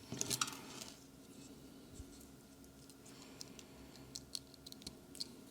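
Faint scattered small clicks and light handling noise from fingers holding wires and a battery lead against a tiny speaker's contacts, over a low steady hum.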